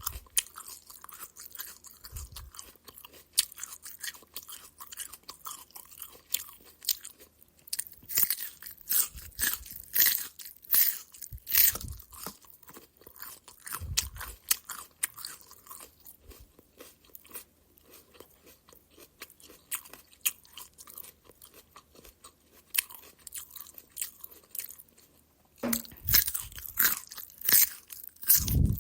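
A person biting and chewing a raw carrot: repeated crisp crunches, in dense spells about eight to twelve seconds in and again near the end, sparser chewing between.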